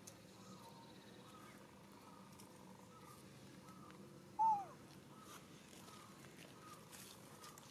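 A single short, clear macaque coo call about halfway through that rises briefly and then falls in pitch. It is heard over faint chirping repeated every half second or so.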